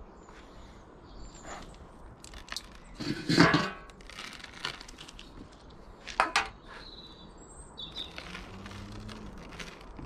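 Dry bird food tipped from a metal tin onto a decking-board bird table and spread by hand, a rattling, crackling spill that is loudest about three seconds in, with a sharper knock of the tin just after six seconds. Small birds chirp faintly now and then.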